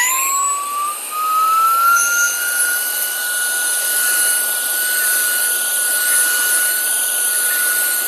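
VSGO cordless handheld vacuum-blower running in blower mode, blowing water off a car hood. Its high-speed motor spins up with a rising whine over the first two seconds, then holds a steady high whine over a rush of air.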